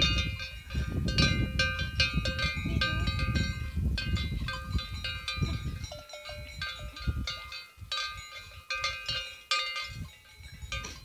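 Livestock bells on grazing horses clanking irregularly, many overlapping strikes, with a low rumble through the first half that fades out about six seconds in.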